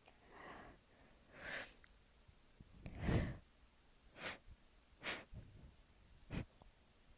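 A person breathing and sniffing in the lull of a sneezing fit: about six short breaths and sniffs, the loudest about three seconds in.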